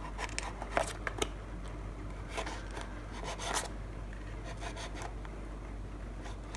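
A thin metal blade scratching and scraping at the seal on the edge of a small cardboard retail box. The scratches come in short strokes, a few in the first second, a denser run from about two and a half to three and a half seconds in, then fainter.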